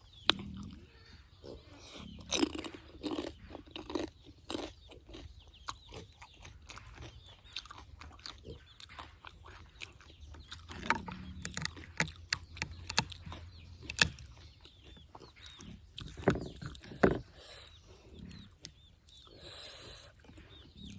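Mouth-close chewing and crunching of pani puri: crisp fried puri shells bitten and chewed, with irregular sharp crunches, a few of them much louder than the rest.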